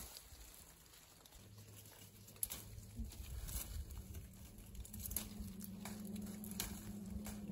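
Tea bush foliage rustling, with scattered faint snaps and clicks as large tea leaves are plucked by hand. A low steady hum comes in about a second and a half in and keeps on.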